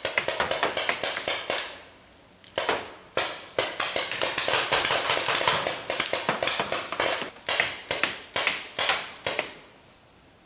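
Paintball markers firing in rapid bursts of sharp pops, several a second. The shooting pauses briefly about two seconds in, then resumes and thins out near the end.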